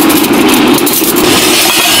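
Stainless steel spoons and chopsticks clinking as they are sorted by hand into steel holders, over a loud, steady drone.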